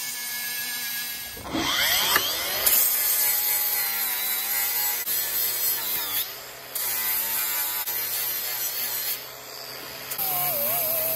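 Cordless Metabo angle grinder with a ceramic alumina flap disc sanding an aluminum motor mount plate flat. The motor whines up to speed about two seconds in, then grinds steadily against the metal, easing off briefly twice.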